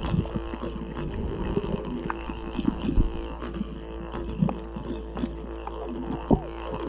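Background music led by a didgeridoo's steady low drone, with short percussive accents, the loudest about three and six seconds in.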